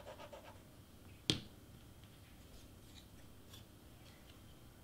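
A single sharp click about a second in, as a plastic squeeze bottle of craft glue is set down on a cutting mat, followed by a few faint ticks and rustles of hands handling small cardstock pieces.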